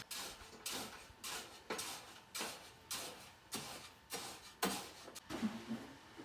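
A steady run of about ten sharp strokes, roughly one and a half a second, each fading quickly.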